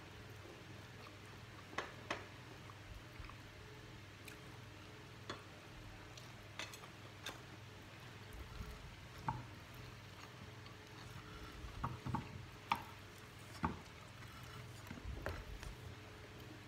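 Quiet eating at the table: fingers working rice and fried fish on ceramic plates, giving scattered light clicks and clinks with soft chewing, over a steady low hum.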